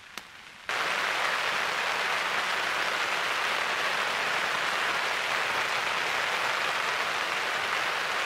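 Heavy rain falling on a tarp shelter, a dense, steady hiss of drops that starts abruptly less than a second in.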